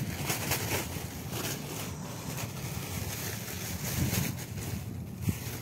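Wind buffeting the phone's microphone: an uneven, gusting low rumble with a faint hiss.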